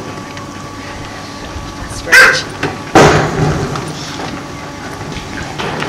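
Little blue (fairy) penguin calling: a short, loud pitched call about two seconds in, followed a second later by a louder, harsher call.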